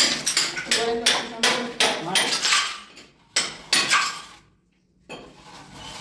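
Hammer blows: a quick, irregular series of sharp strikes with some ringing, about two a second, ending about four and a half seconds in.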